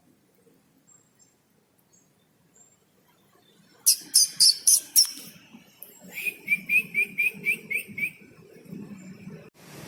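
A sunbird (the bird Indonesian keepers call kolibri) singing: about four seconds in come five loud, sharp high chirps, then a rhythmic trill of about eight notes, some four a second, the cricket-like chirping it has learned as part of its song.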